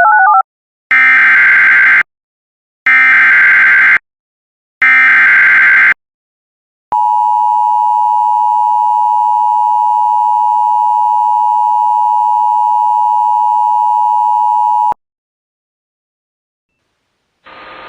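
Emergency Alert System header: three bursts of SAME digital data tones, each about a second long, then about eight seconds of the steady two-tone EAS attention signal, which cuts off sharply. A short alternating two-note beep ends at the very start.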